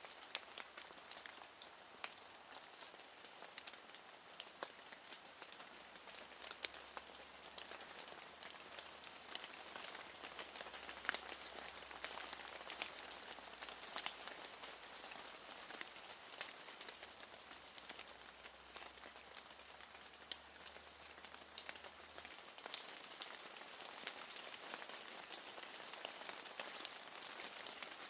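Faint, steady rain, with frequent sharp ticks of raindrops striking a window.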